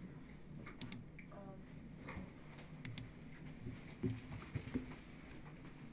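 Clicks of a computer mouse, two quick pairs like double-clicks about a second in and near the middle, followed by a few duller knocks.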